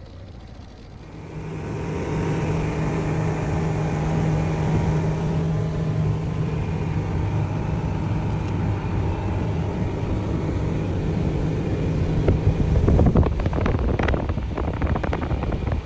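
Motorboat engine running steadily at cruising speed, a low hum with water and hull noise, starting about a second and a half in. Near the end, wind buffets the microphone in rough gusts.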